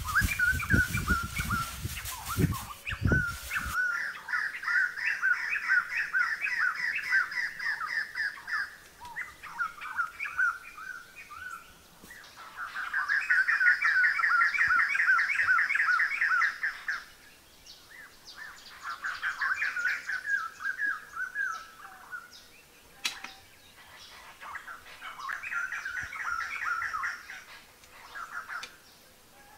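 Birds singing in phrases of rapid repeated trilling notes, each phrase a few seconds long with short pauses between. For the first few seconds, rustling and knocks of dry thatch being handled sound under the song.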